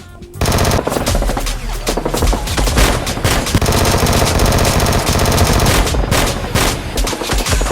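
Rapid automatic gunfire sound effects, starting abruptly about half a second in and running on in dense bursts, over background music.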